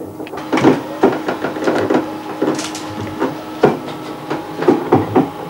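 Talgo train carriage in motion, heard from inside: irregular knocks and clunks, several a second at times, over a steady hum.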